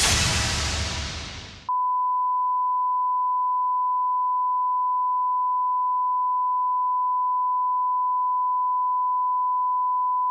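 A TV station's title music sting fading out, then, about 1.7 seconds in, a broadcast line-up test tone starts: one steady, unchanging pitch held on the colour-bar test pattern.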